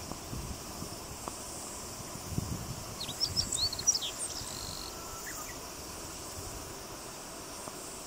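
Meadow bunting singing one short song phrase of quick high notes and slurs about three seconds in, lasting about a second and a half. A steady high drone of insects runs underneath.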